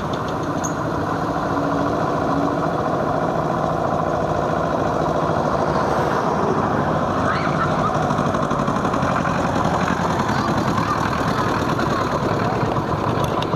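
Old farm tractor engines running steadily as a slow convoy of vintage tractors drives past.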